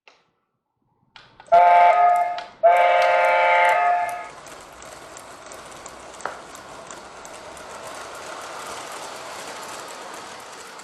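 A model train sounds two long blasts from its onboard sound system. It then runs along the track with a steady rolling noise.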